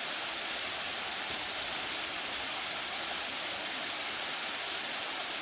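Steady rush of a small waterfall pouring into a pool.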